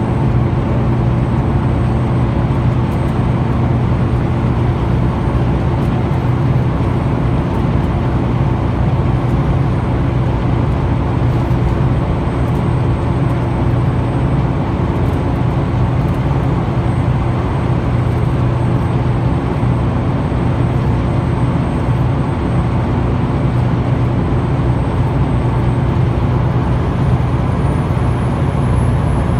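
Scania L94 bus's engine and road noise droning steadily, heard from inside the Wright Solar single-deck saloon as the bus cruises along. A faint high whine rises in pitch near the end.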